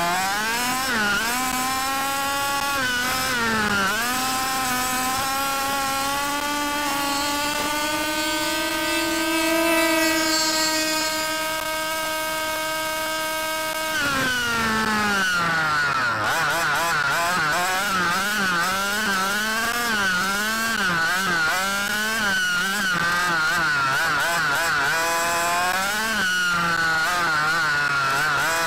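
A 5th-scale gas RC buggy's full-mod OBR 30.5cc two-stroke engine running hard. The revs climb to a high steady pitch held for several seconds, then drop sharply about halfway through. After that they rise and fall rapidly again and again with the throttle.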